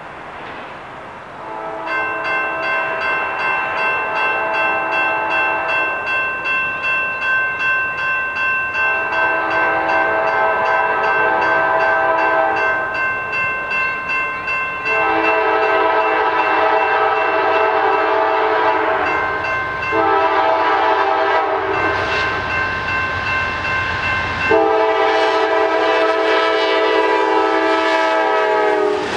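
Grade crossing bells start ringing about two seconds in, pulsing steadily as the gates come down. Then an approaching Norfolk Southern freight locomotive sounds its horn in the standard crossing signal: two long blasts, a short one, and a final long blast held until the train reaches the crossing.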